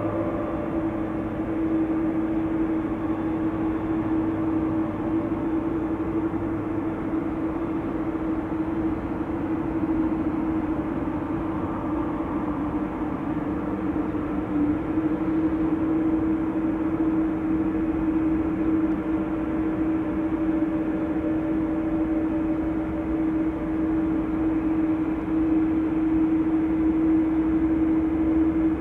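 Boeing 787-9 jet engines running at idle as the airliner taxis: a steady hum with one constant, unchanging tone.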